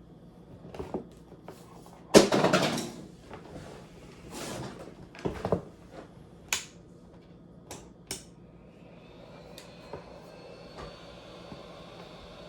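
Handling sounds of a laptop being worked on: a loud scraping rustle about two seconds in, more scrapes, then several sharp clicks of small parts and tools. A faint steady hum with a thin high whine comes in near the end.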